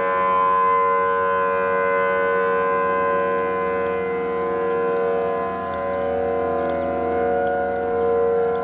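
Distant outdoor warning sirens, among them a Federal Signal Thunderbolt 1000T, sounding a steady tone together, several pitches at once, slowly swelling and easing in loudness.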